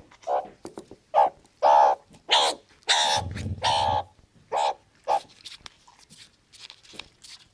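An animal's short, sharp calls, about nine in the first five seconds, some in quick pairs. After that there is only faint scuffling.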